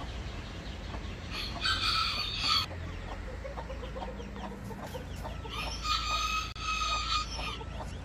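A rooster crowing twice: a shorter crow about two seconds in and a longer, drawn-out crow around six seconds in.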